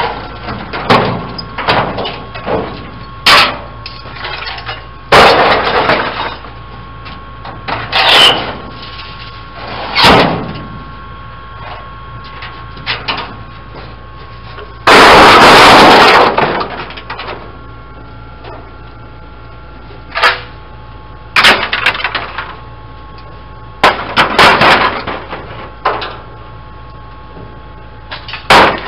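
Rusted sheet-steel body panels from a parted-out 1963 Plymouth Fury being thrown off a pickup bed onto a scrap pile, making an irregular string of metal clanks and crashes. The loudest is a long crash about fifteen seconds in.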